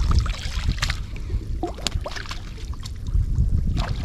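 Uneven low rumble with scattered light knocks and clicks, and a short squeak about one and a half seconds in.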